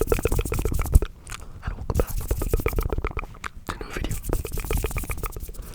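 Fast ASMR mouth sounds close to the microphone: rapid wet clicks and smacks, very quick at first, then in shorter spurts with brief pauses.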